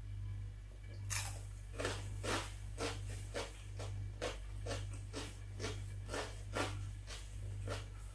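A slice of raw red bell pepper bitten and chewed: one loud crunch about a second in, then crisp crunches about two a second.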